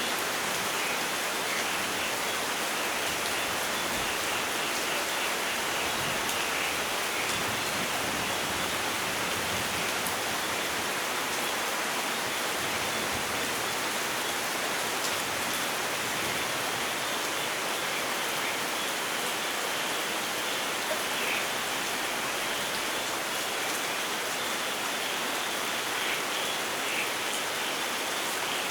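Steady rain, an even hiss with fine scattered drop patter.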